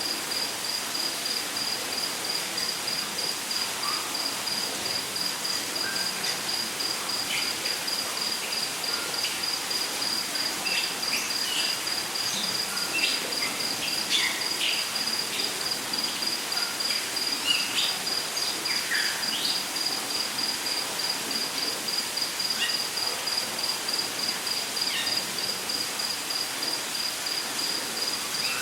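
Rainforest ambience: an insect trills steadily in a fast, even, high-pitched pulse, while short chirps of birds come and go over a steady hiss.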